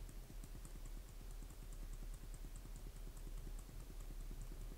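Faint, quick clicking of computer keys, about five a second, over a low steady hum.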